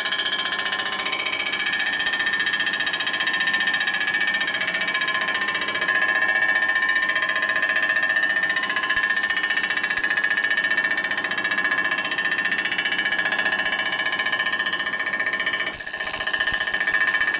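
Machine tool cutter taking a facing cut across a chromed Harley shovelhead primary cover, with a rapid chatter and a steady high-pitched ringing. The cut is uneven because the chrome and copper plating under it do not cut cleanly. The sound eases briefly near the end.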